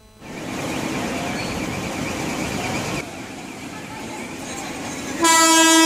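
A road-rail flash-butt welding lorry running along a railway track, heard as a steady rumbling noise with a faint background murmur. About five seconds in, a loud, steady single-pitched horn blast begins and becomes the loudest sound.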